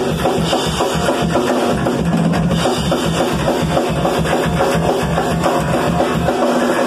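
Live two-piece band playing loud: a drum kit pounding a steady fast beat with bass drum and snare, under a guitar.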